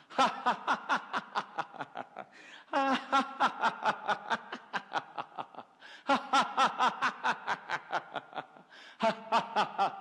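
A man laughing deliberately, "ha ha ha" in fast even pulses of about five or six a second, in long runs broken by short pauses for breath. It is staged laughter for a qigong exercise, meant to vibrate the thymus.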